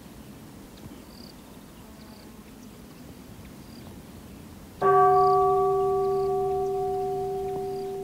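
Faint insect chirps at a steady pace. About five seconds in, a temple bell is struck once and rings with a clear, slowly fading tone, then cuts off abruptly at the end.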